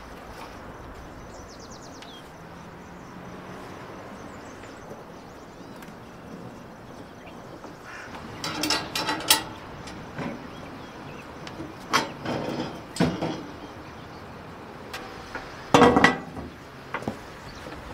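Short bursts of knocking and clatter, a few sharp hits at a time, over a steady low background hiss. They come about halfway through, again a few seconds later, and loudest near the end.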